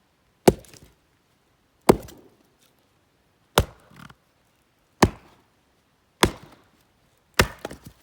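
Helko axe striking hard zelkova firewood: six sharp chops, one about every second and a half.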